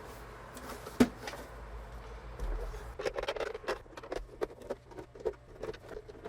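Small clicks, taps and scratching from handling the parts of a DJ controller being taken apart, with one sharper click about a second in and a run of quick irregular ticks in the second half.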